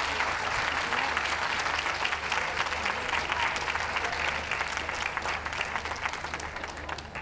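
Audience applauding: dense clapping that slowly fades toward the end.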